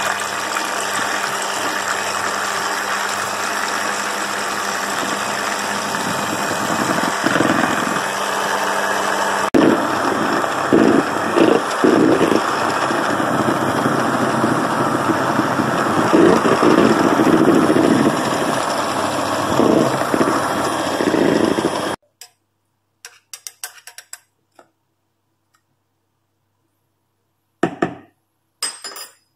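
Electric hand mixer running steadily, its twin wire beaters whisking egg whites to a froth in a plastic bowl. It is switched off and cuts out suddenly about 22 seconds in, followed by a couple of brief knocks near the end.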